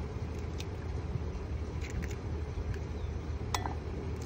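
Eggs tapped and cracked against the rim of a glass bowl: a few light clinks, the sharpest about three and a half seconds in, over a steady low background rumble.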